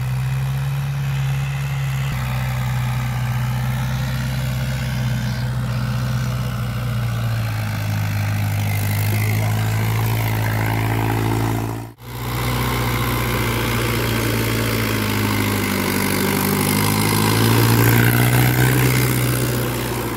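Mahindra 575 tractor's four-cylinder diesel engine running steadily under load as it drives a rotavator through the soil, growing louder as it passes close near the end. The sound cuts out for an instant about twelve seconds in.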